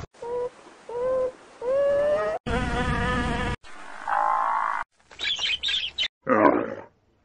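A series of short, different animal calls spliced one after another with abrupt cuts and brief silences between them: several rising pitched calls, a buzzing one, and a harsh noisy one near the end.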